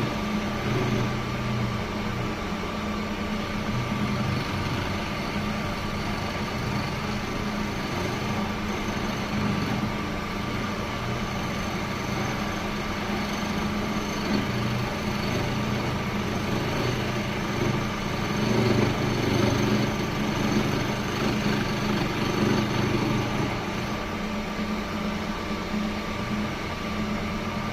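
Electric woodworking machine running steadily, a continuous motor hum with a few steady tones, its low end swelling slightly now and then as the load changes.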